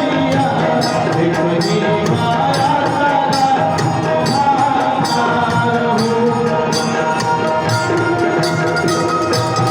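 Instrumental interlude of a Bhojpuri devotional band: a sustained melody line over steady, evenly spaced percussion strokes with a bright jingle.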